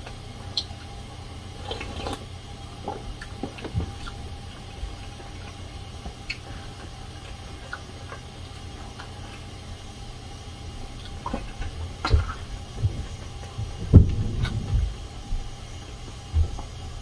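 Eating sounds: soup sipped from a small plastic cup, chewing, and scattered clicks of a spoon and fork against plastic food containers. A few louder knocks come in the last third.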